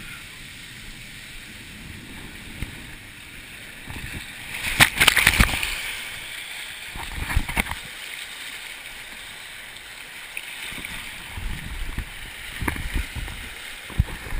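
Water at a water-park slide running and sloshing, with a loud burst about five seconds in and shorter ones later, heard through a GoPro's waterproof case.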